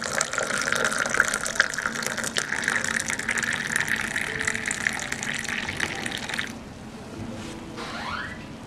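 Hot turmeric milk pouring in a steady stream into a clay kulhad cup, stopping suddenly about six and a half seconds in.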